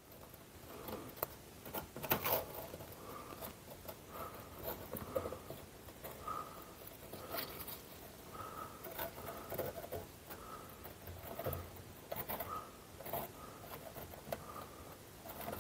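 Faint handling noise of gasket glue being squeezed out into a stove door's rope groove: irregular soft clicks and scrapes, with short squeaks about once a second.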